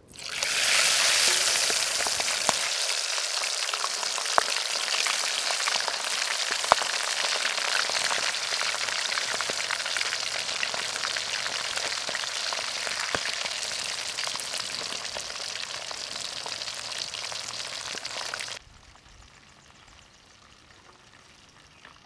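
Whole quail deep-frying in hot oil in a metal wok, a loud sizzle that starts as the birds go in and eases slowly, with a few sharp pops of spattering oil. The sizzle cuts off abruptly near the end.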